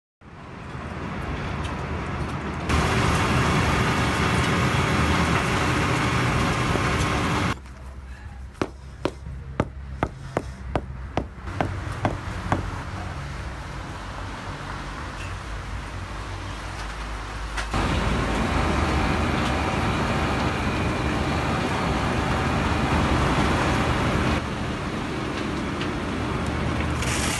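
Roadworks noise in several abrupt cuts: construction vehicles and traffic running steadily. In the middle, a run of about ten sharp knocks, about two a second, comes from paving work.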